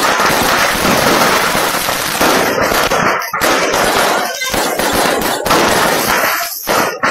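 Fireworks stock going off in a burning stall: a dense, continuous barrage of firecracker bangs and crackling. About halfway through it breaks into separate volleys with short gaps between them.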